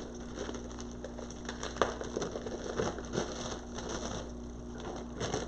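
Soft rustling and small clicks of craft materials being handled by hand, with one sharper click about two seconds in, over a faint steady hum.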